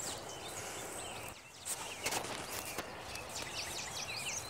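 Hands scraping and pressing loose soil and mulch back into the hole around a newly set sprinkler head, with a few soft scrapes and knocks. Birds chirp faintly in the background in the second half.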